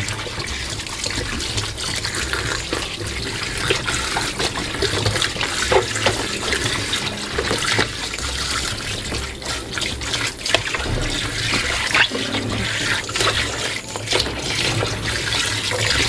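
Water from a garden hose splashes steadily into the bottom of a top-loading washing machine's tub, rinsing the exposed hub where the pulsator has been removed. Scattered small knocks and splashes come from a hand scrubbing in the stream.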